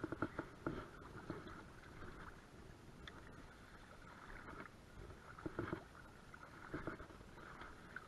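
Faint, irregular sloshing and splashing of creek water around someone standing in the current, coming in small clusters near the start and again about five and a half and seven seconds in, with light handling noise from a spinning rod and reel being cast and reeled in.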